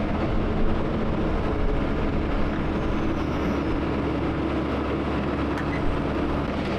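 Excavator engine running steadily, a continuous mechanical drone with a constant low hum.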